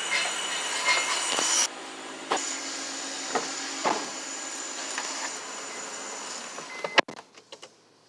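Steady hissing of self-service car wash machinery, with a few handling knocks; it drops in level about two seconds in. A sharp click comes near the end, after which it is almost silent.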